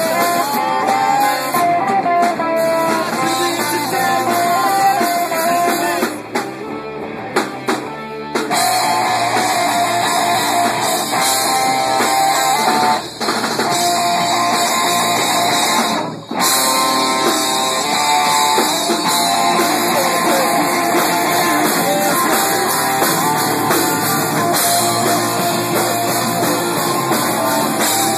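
Rock band playing live, with electric guitars, bass and drum kit, and a singer. The music thins out for about two seconds around six seconds in, and drops out for a split second twice later on.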